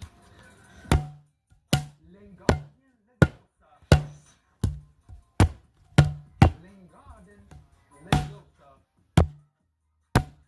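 About a dozen sharp knocks, unevenly spaced roughly every half second to second. Many carry a short low thud, with faint wavering tones between them.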